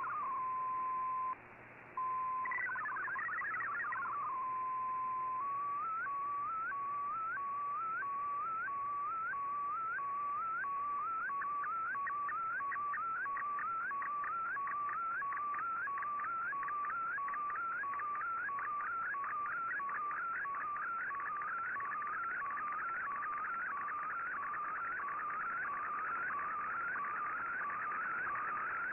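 MFSK digital image signal from a shortwave broadcast, decoded by Fldigi. A short warbling data burst and a steady tone, broken by a brief dropout, lead into a long run of repeating rising chirps that come faster as it goes on, the picture being sent line by line.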